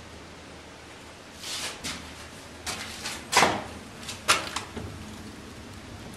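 A window being opened by its handle: a few sharp clicks and knocks from the handle and frame with brief scraping, the two loudest about three and four seconds in.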